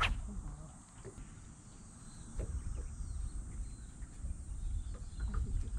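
Wind buffeting the microphone in gusts, a low rumble that comes and goes over faint outdoor background, with one sharp click right at the start.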